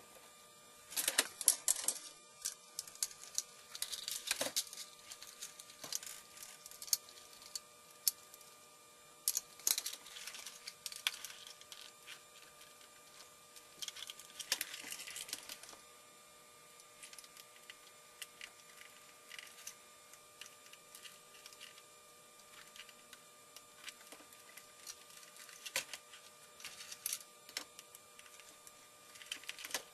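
Plastic toy-blaster parts being handled and worked on: irregular clicks, rattles and short scrapes in bursts, over a faint steady hum.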